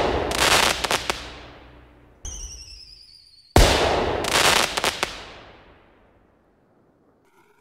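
Two firework bursts about three and a half seconds apart, each a sudden bang followed by crackling that fades away over a couple of seconds.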